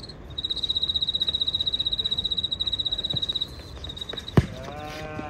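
Pea whistle blown in a long trilling blast for about three seconds. A sharp thump follows about four seconds in, then a brief shout.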